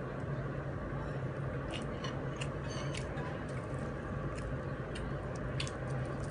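Eating by hand: scattered small clicks and smacks of chewing and fingers picking at chicken and rice on a plate, over a steady low hum.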